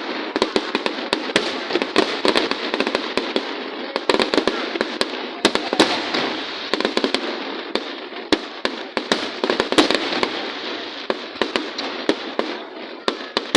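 Fireworks display going off: a dense, continuous run of sharp bangs and crackling, many each second.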